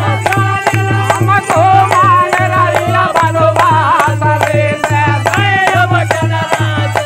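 Men's voices singing a Hindi devotional folk bhajan (sambadi bhajan) together, accompanied by a dholak drum, hand clapping and small hand cymbals keeping a steady, quick beat.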